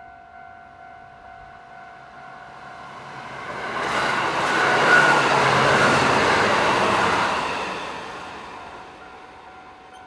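A limited express train passing at speed, its wheel-on-rail noise building to a loud peak about four to seven seconds in and then fading as it goes by. A level-crossing warning bell rings steadily underneath.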